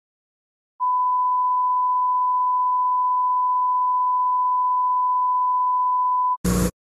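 Steady line-up test tone accompanying colour bars, one unbroken pure beep held for about five and a half seconds. It cuts off and is followed near the end by a brief burst of noise.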